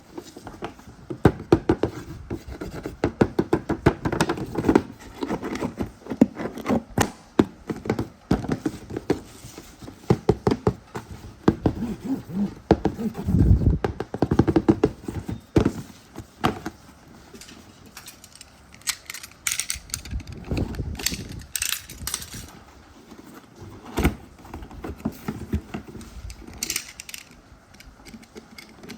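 Irregular hard knocks, clicks and thuds, dense in the first half with a run of heavier low thumps about halfway through, then sparser, sharper clicks.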